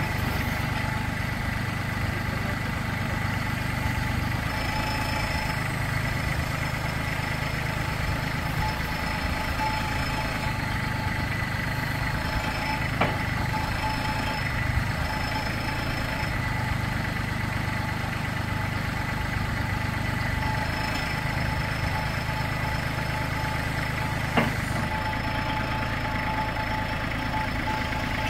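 Compact tractor engine idling steadily while its front-end loader is raised and lowered, with a faint high tone coming and going and two short clicks, one about halfway and one near the end.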